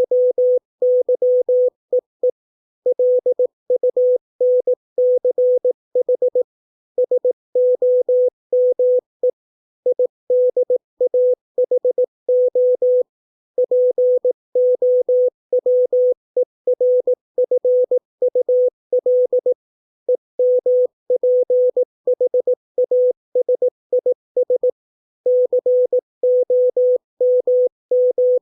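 Morse code sent at 18 words per minute as a single steady mid-pitched beep, keyed in short and long pulses with brief pauses between words, spelling out English words for copying by ear.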